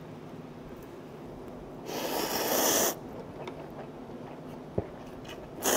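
Slurping of stir-fried instant ramen noodles: a noisy slurp of about a second, building up and then cutting off. A faint click follows, and a second slurp starts near the end.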